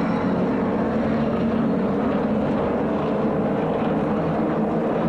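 A pack of super late model stock cars' V8 engines droning steadily together as the field circulates at reduced speed, lining up for a restart.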